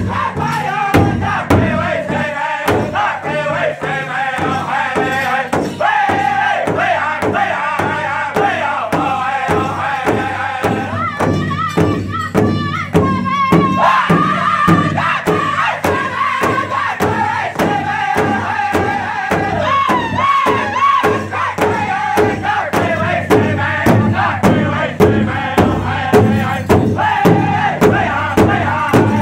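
Powwow drum group singing a crow hop song: several voices chanting together in a high pitch over one large drum struck in a steady beat, about two beats a second.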